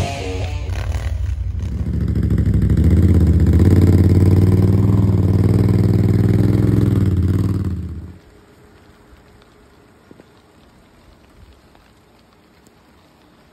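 Can-Am ATV engine running loudly through its exhaust. It swells about two seconds in and holds a steady rev, then stops abruptly about eight seconds in, leaving only a faint hiss.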